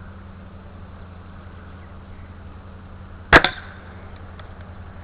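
A single air rifle shot about three seconds in: one sharp report with a brief tail.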